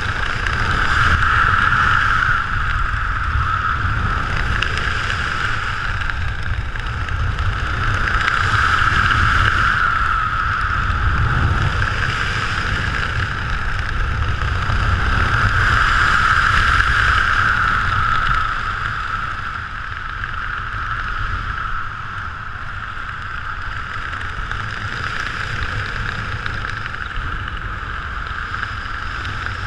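Wind rushing over a parachutist's action-camera microphone during descent under an open canopy: a steady low buffeting with a hissing band that swells and eases several times, settling a little quieter late on.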